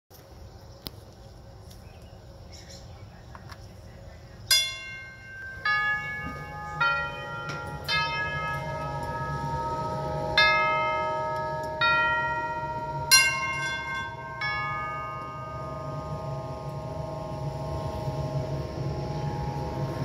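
Vintage NuTone tubular doorbell chime, refurbished and working, playing eight notes in two phrases of four with a short pause between. Each brass tube is struck and left ringing, so the notes overlap and slowly fade.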